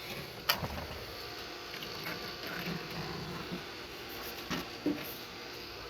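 A few sharp clicks and taps of small metal parts and tools being handled while a transmission valve body is taken apart. The loudest click comes about half a second in, and two more come near the end, over a faint steady hum.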